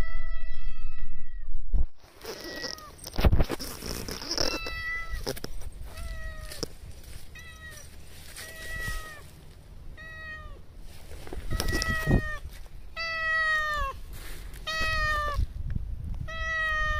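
Cat meowing over and over in short meows that drop at the end, about one a second, louder in the last few seconds. It opens with one long, steady meow over a low rumble that cuts off about two seconds in.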